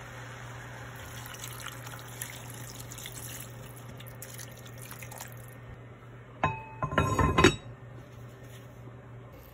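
Water poured from a glass measuring cup into a cast-iron Staub pot of beef and radish, splashing steadily for about five seconds. Then the pot's heavy cast-iron lid is set on with a few loud, ringing clanks.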